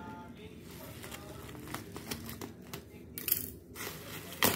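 Black plastic bubble-wrap packaging being pulled open by hand: rustling and crinkling plastic with scattered small clicks, a louder rush of crinkling about three seconds in, and a sharp click near the end.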